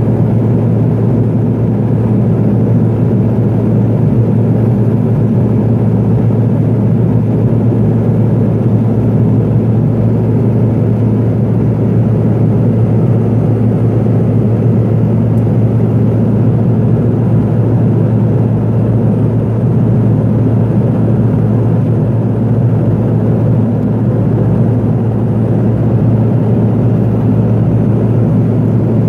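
Steady cabin drone of a Pilatus PC-12 in flight: its single Pratt & Whitney PT6A turboprop engine and propeller heard from inside the cabin, a loud constant drone with a strong low hum and a rushing noise over it.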